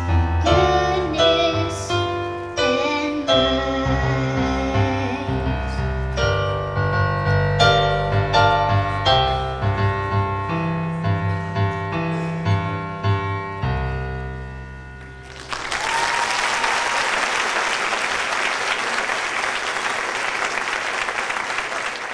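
A child singing a solo into a microphone over piano accompaniment; the voice drops out after a few seconds while the piano plays on and fades. About fifteen seconds in, a large audience bursts into steady applause.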